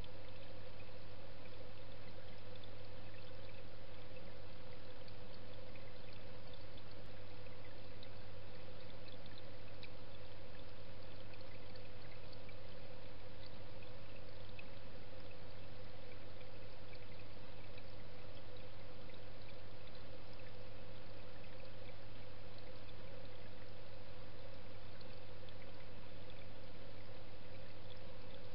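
Steady rush of moving pond water with a constant low hum, heard underwater, typical of a running pond pump and filter.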